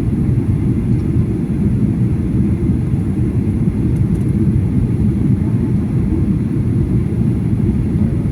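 Passenger jet cabin noise during the landing: a steady low rumble.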